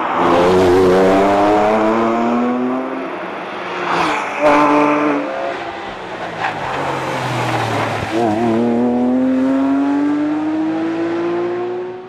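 Porsche 911 GT3's flat-six engine accelerating hard, its pitch rising in a long pull through the first three seconds and again from about eight seconds in. Around four seconds in, between the pulls, there are two sharp cracks.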